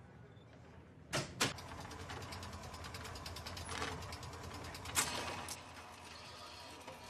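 Film-trailer sound design: two sharp hits about a second in, then a rapid mechanical ticking over a low rumble, with another hit about five seconds in.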